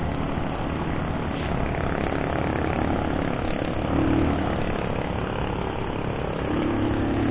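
Keeway CR152 motorcycle running slowly in traffic: a steady engine drone mixed with road and traffic noise, the engine hum growing a little stronger near the end.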